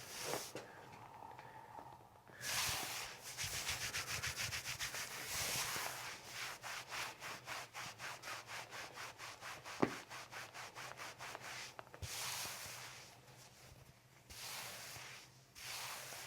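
Hands rubbing quickly back and forth over clothing on a patient's lower back, a fast scrubbing of about five strokes a second, with a single small knock about ten seconds in and a few slower, longer swishes near the end.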